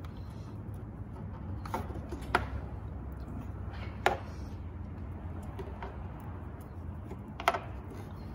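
Phillips screwdriver working the plastic push-pin clips of a car's radiator cover to start them out: four sharp clicks, spaced one to three seconds apart, over a steady low hum.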